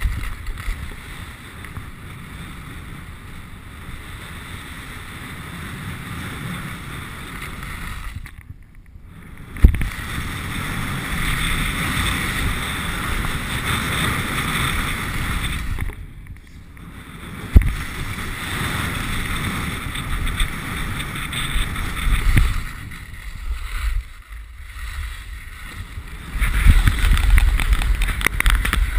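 Skis scraping and hissing over packed snow with wind buffeting the microphone, heard from a camera worn by the skier. Twice it goes briefly quiet and then a sharp thud follows: jump landings.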